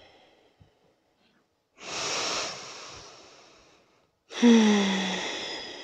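A woman taking a deep breath through the nose: a long inhale about two seconds in, then a louder exhale near the end that opens with a low, falling hum.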